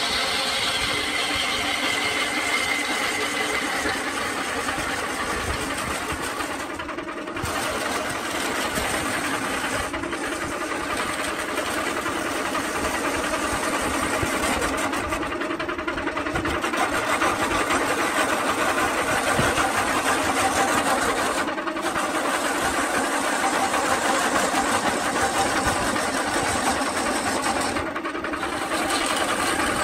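Wood lathe running while a hand-held turning tool cuts a spinning coconut palm log: a steady scraping hiss of shavings over the hum of the lathe's motor. The scraping dips briefly a few times.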